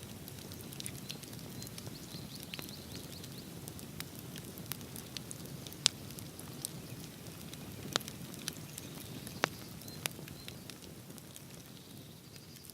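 Wood bonfire burning with a steady low rush of flame and scattered sharp crackles and pops, a few of them much louder than the rest, the fire growing a little quieter near the end.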